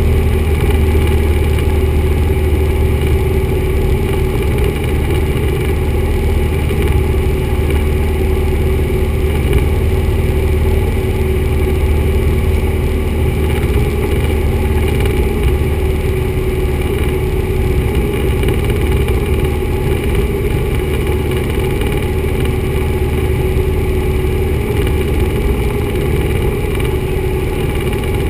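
Four-cylinder Lycoming engine and propeller of a 1974 Cessna 172 droning steadily in flight, heard from inside the cabin.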